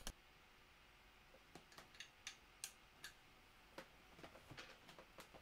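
Faint, irregular clicks and taps of a 3D-printed plastic part being handled and fitted onto a 3D printer's frame, about a dozen of them starting a second and a half in, over near silence.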